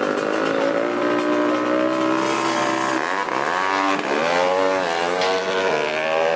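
Racing motorcycle engine running steadily, then revved up and down several times from about three seconds in.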